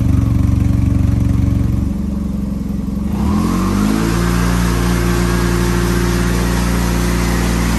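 SYM TL500/TL508 maxi-scooter's parallel-twin engine running through an aftermarket full exhaust system with an Akrapovic muffler. It idles steadily, then about three seconds in the revs rise smoothly and are held at a steady higher speed.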